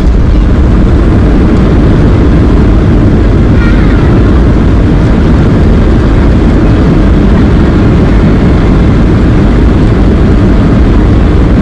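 Steady cabin noise inside a Boeing 737-800 airliner: the engines and the rushing air heard as an even, loud rumble.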